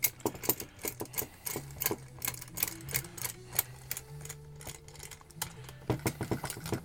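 Steel G-clamp being fitted and screwed down onto the pine boards of a cigar-box tobacco press: irregular metallic clicks and rattles of the clamp's screw and sliding tommy bar, with knocks against the wood.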